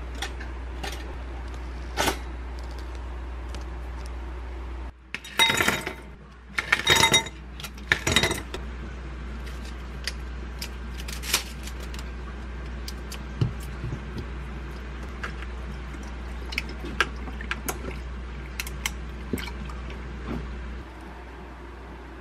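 Ice cubes clattering into a glass in three loud bursts, about five to eight seconds in, followed by lighter clinks of ice against the glass as milk is poured over it.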